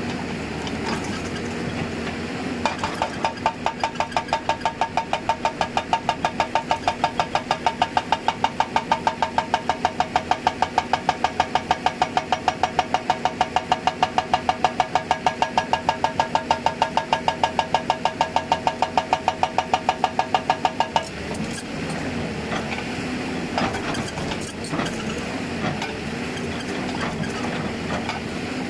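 Hydraulic breaker on a Hyundai 290 excavator hammering in a fast, even train of ringing metallic blows, about four a second, starting a couple of seconds in and stopping abruptly about three-quarters of the way through. The excavator's diesel engine runs steadily underneath throughout.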